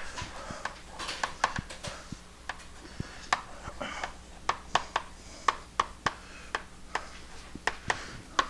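Chalk writing on a blackboard: a run of sharp, irregular taps as the chalk strikes the board, one or two a second, with light scratching between them. A steady low room hum lies underneath.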